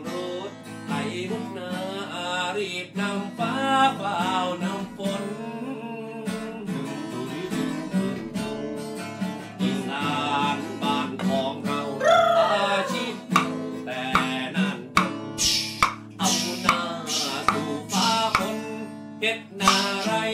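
A man singing with his own acoustic guitar accompaniment. About two-thirds of the way through, the strumming turns into sharp, rhythmic strokes.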